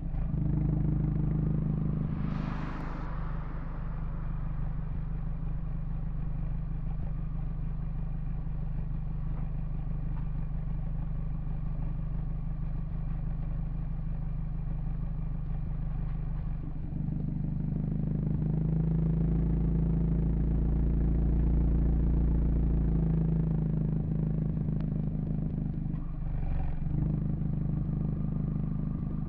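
The Abarth 124 Spider's turbocharged 1.4-litre four-cylinder idling steadily while the car waits, picked up by an external microphone that distorts badly. The idle grows fuller and louder a little past halfway. Traffic passes with a short rushing sound about two and a half seconds in and again near the end.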